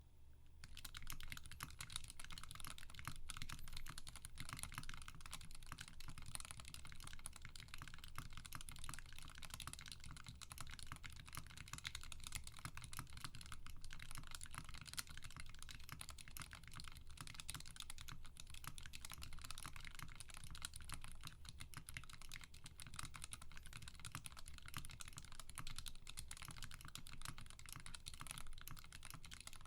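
Steady fast typing on a GK64 mechanical keyboard with Durock Alpaca linear switches lubed with Krytox 205g0, on an aluminium plate with PBT keycaps: a dense, unbroken stream of keystroke clacks starting about half a second in.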